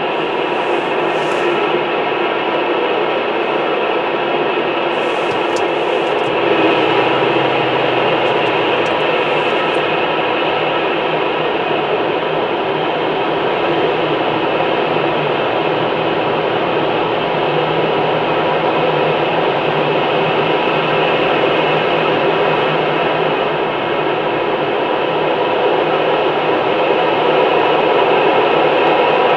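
GE J79 turbojet engine running steadily on a test stand, a continuous broad jet roar with faint steady tones through it.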